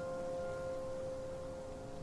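Soft background piano music: a held chord rings on and slowly fades, with no new notes struck.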